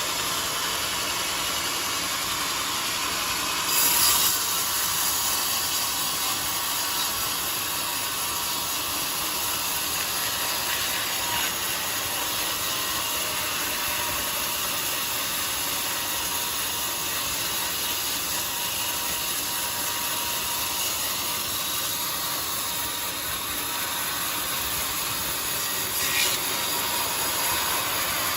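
Bandsaw mill blade cutting through a jackfruit log, a steady sawing noise. A brief louder burst comes about four seconds in and another near the end.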